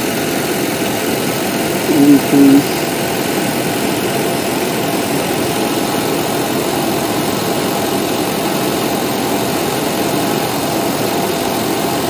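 A 1992 GMC Suburban's TBI 5.7-litre V8 idling steadily. The electronic spark timing connector is unplugged, so the engine is running on base timing for a timing-light check.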